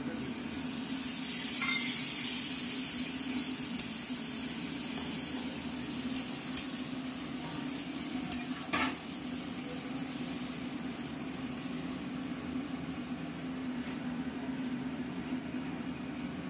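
Food sizzling as it fries in a pan and is stirred, loudest in the first few seconds, with several sharp clicks of a spatula against the pan in the middle. A steady low hum runs underneath.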